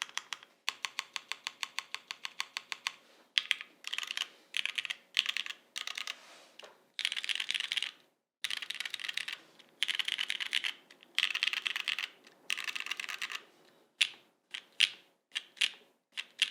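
Cherry MX Black linear switches, lubed and filmed, in a top-mount Jane v2 custom mechanical keyboard with a polycarbonate plate and GMK keycaps, being pressed for a sound test. It opens with a fast, even run of single presses on the modifier keys, then dense runs of alpha keys in blocks of about a second with short pauses between them, and ends with a few separate keystrokes.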